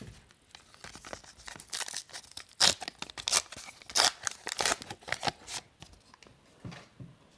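Foil wrapper of a 1990-91 Upper Deck hockey card pack being torn open by hand: a run of sharp rips and crinkles, loudest about two and a half and four seconds in, then dying away.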